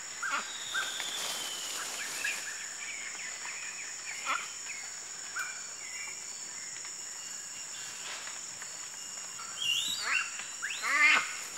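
Young proboscis monkeys giving short squealing calls as they play, with a louder run of squeals near the end. A steady high insect drone of the rainforest runs underneath.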